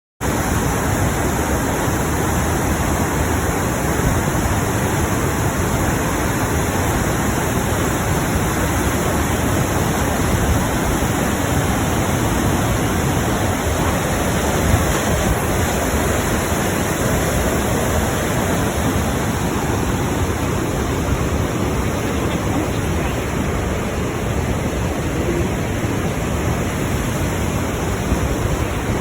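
Krimml Waterfalls' water rushing down, a steady, dense roar that does not change.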